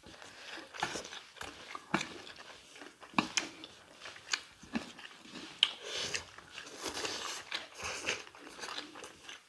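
Close-up eating sounds of two people eating chicken chowmein noodles with chopsticks: irregular chewing and slurping of noodles, broken by many small sharp clicks.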